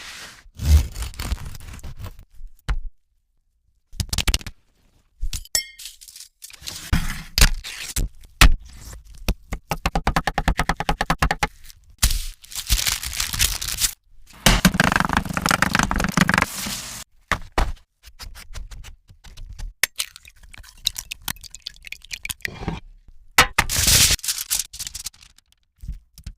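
Kitchen preparation sounds: a series of knocks, scrapes and clinks of utensils and dishes, with a rapid rhythmic stretch about ten seconds in and a longer noisy stretch a few seconds later.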